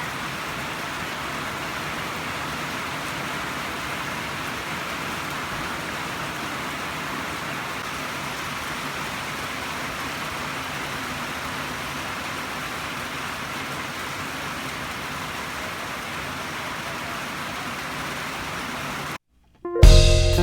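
A steady, even hiss of noise that holds at one level, then cuts off abruptly about a second before the end. Guitar music starts right after.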